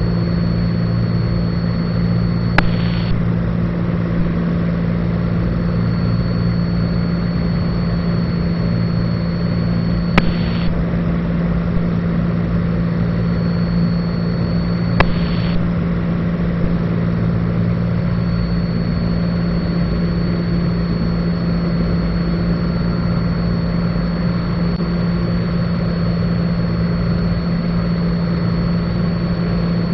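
Steady drone of a Cessna 182 Skylane's piston engine and propeller in flight, with three sharp clicks spread through it.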